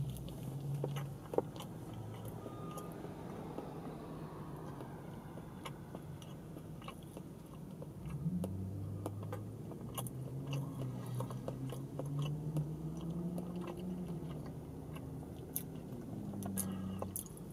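A person biting into a sandwich and chewing it, with many small wet mouth clicks. A low hum runs under it in the second half.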